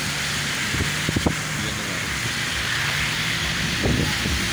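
Car heard from inside the cabin while driving: steady engine and tyre noise, with a couple of light knocks about a second in.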